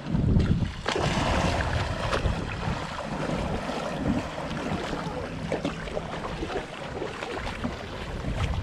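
Wind buffeting the microphone over the rush of sea water as a small boat runs along, the gusts heaviest at the start.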